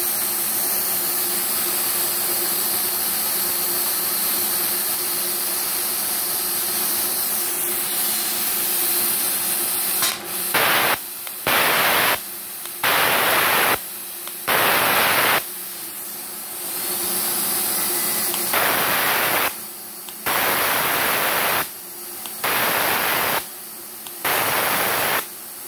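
Plasma cutter torch: a steady hiss of air for about ten seconds. Then the trigger is pulled again and again, and each pull fires the pilot arc in a loud hissing burst of about a second, some nine times, cutting off sharply between pulls.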